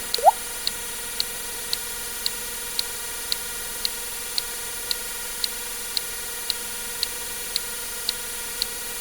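A water-drip sound effect, a single short plop rising sharply in pitch, just after the start. Under it, a sharp tick sounds about twice a second over a steady hiss.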